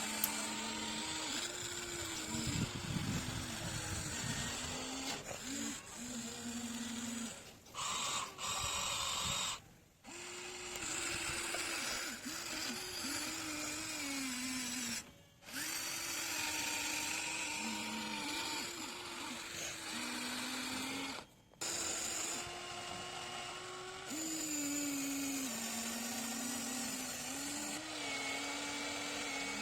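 Huina 1593 RC excavator's small electric gear motors whining as it works, the pitch stepping and sliding up and down as different motions start and stop. It cuts out briefly about four times.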